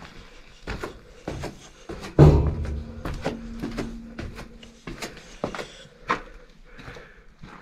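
Footsteps going down concrete stairs: a run of scuffs and knocks, the loudest a heavy thump about two seconds in.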